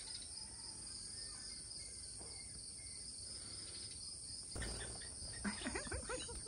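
Steady high-pitched chirring of insects. In the last two seconds a low rumble and several short rising and falling calls come in over it.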